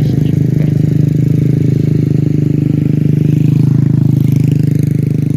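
A small engine idling steadily at an even pitch.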